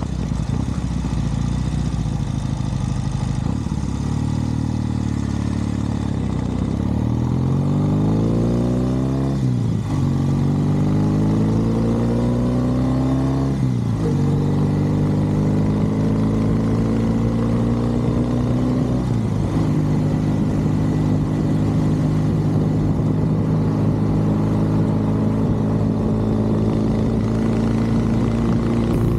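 Norton Commando parallel-twin motorcycle accelerating up through the gears: the engine note rises, drops at each of three upshifts about ten, fourteen and nineteen seconds in, then holds steady at a cruise.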